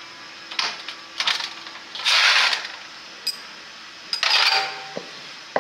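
Handling noise from a D15 diesel engine's cast-iron cylinder head being lifted and set back in an aluminium basin of diesel oil: about four short scraping swishes, the loudest about two seconds in, and a few sharp metallic clinks, the last just before the end.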